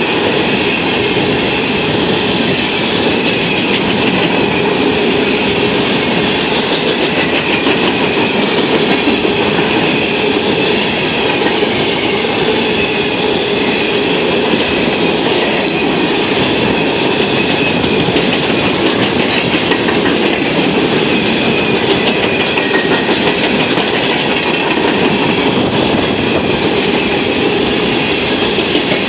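Loaded coal train's hopper cars rolling past at speed: a steady, loud rush of steel wheels on the rails with continuous clatter from the trucks.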